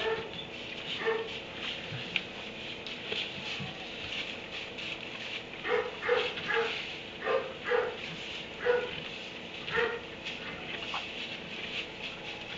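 Dog barking in a kennel: two short barks at the start, then a run of about seven barks from roughly six to ten seconds in, over a steady background hiss.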